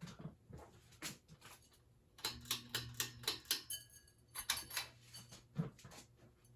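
Moss WF Series ceiling fan switched to low speed: a low motor hum comes in about two seconds in, with bursts of rapid ticking and clicking. The owner says this fan has bearing noise.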